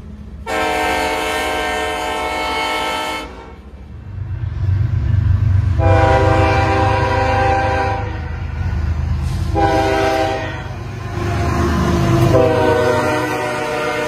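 Freight diesel locomotive air horns sounding chords over a loud pass. One long blast comes about half a second in. Then, under the low rumble of locomotive engines, there is another long blast, a short one and a third long one near the end.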